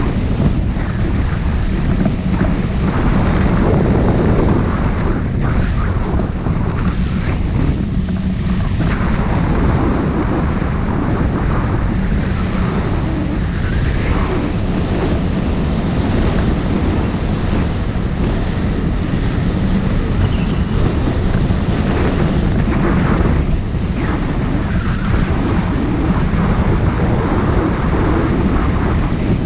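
Airflow rushing over the microphone of a camera mounted on a hang glider's wing in flight: loud, steady wind noise that surges unevenly up and down.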